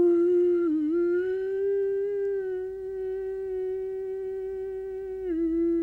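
A man's voice holding one long, steady wordless note, shifting from an "ooh" to an open "ah", with a brief dip in pitch about a second in and again near the end.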